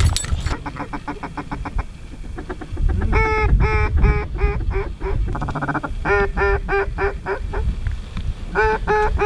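Duck quacking in rapid runs of evenly spaced quacks, about five a second, several series one after another with short gaps between.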